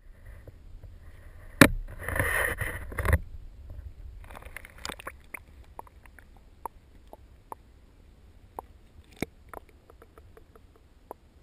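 Pond water sloshing against a GoPro's waterproof housing as the camera is lowered into it on a pole: a sharp knock, then about a second and a half of sloshing, a shorter slosh a little later, and then scattered small clicks and pops with the camera at and below the surface.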